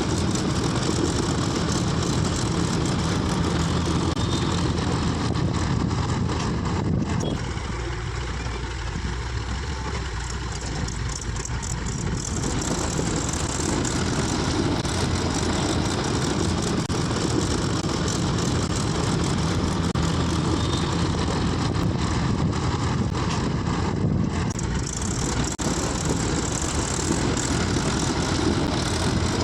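Diesel engine of heavy machinery running steadily, somewhat quieter for a few seconds about a quarter of the way in.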